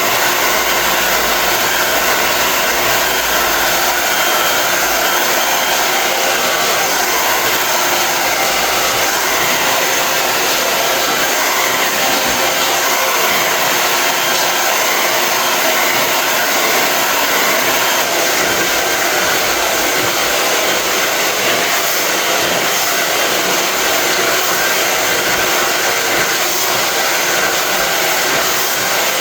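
A hair dryer blowing steadily on a constant setting.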